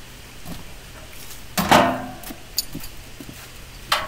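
Steel parts of a concrete block moulding machine clanking as the rammer is set into the mold: a loud metal clank with a short ring just before halfway, a few light taps, and another sharp clank near the end.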